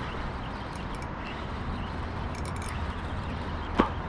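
Steady low outdoor rumble, with one sharp click near the end.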